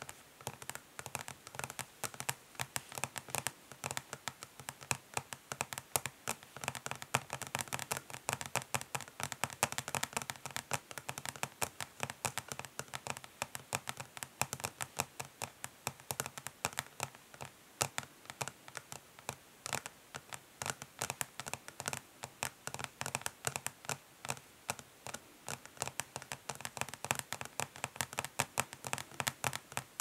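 Long natural fingernails tapping fast and lightly on the hard plastic lid of an eyeshadow palette: a dense, unbroken run of small clicks, many a second.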